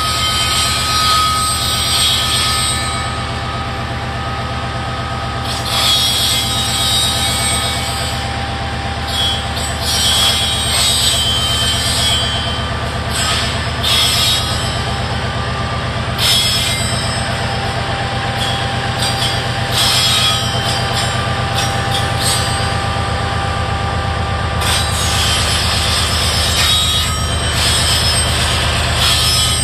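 BNSF diesel locomotives hauling a rock train at slow speed: a steady low engine drone, with thin high squeals of the wheels on the rail and scattered clicks and clanks from the wheels.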